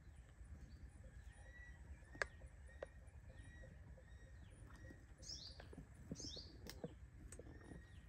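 Faint sound: two short high bird chirps about five and six seconds in, over a low rumble, with a sharp click a little after two seconds.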